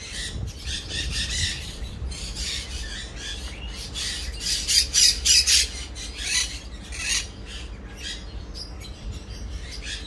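Sun parakeets (sun conures) squawking: repeated short, harsh, shrill calls, with a loud run of screeches around the middle.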